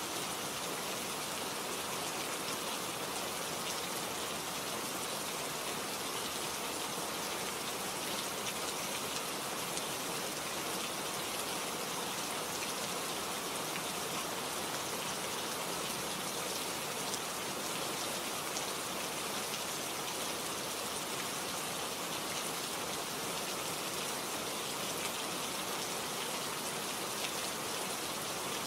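Steady rain falling, an even hiss of many drops with fine scattered patter and no change in strength.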